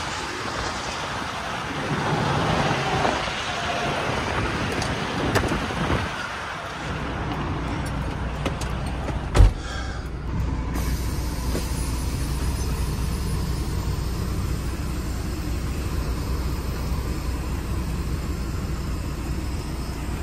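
International LoneStar semi truck's diesel engine idling, first heard outside under wind noise on the microphone. About halfway through a single loud thump as the cab door shuts, after which the engine is a steady low drone heard from inside the cab.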